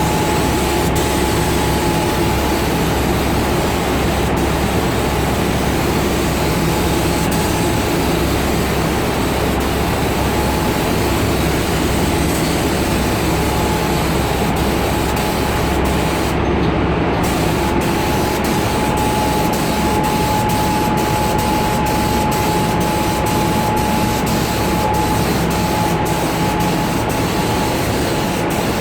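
Steady rush of compressed air in a spray-paint booth, with a constant thin whine and a low hum underneath.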